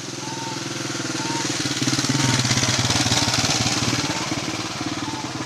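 A small engine running nearby, with a fast, even pulse, growing louder to a peak about halfway through and then easing off a little. A faint short high chirp repeats about once a second.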